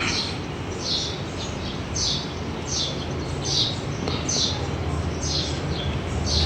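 A bird chirping over and over in short high notes, each falling in pitch, about one and a half a second. A low steady hum runs underneath.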